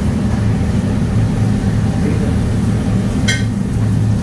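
Steady low machine hum, like a kitchen appliance or ventilation motor running, with one short high clink about three seconds in.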